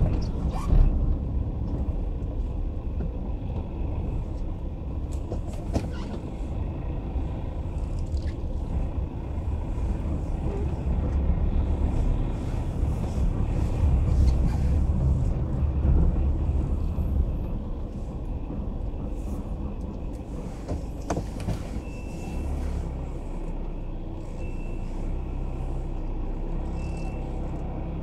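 Car engine and tyre rumble heard from inside the cabin while driving slowly, swelling a little midway. A few short high beeps sound about two and a half seconds apart near the end.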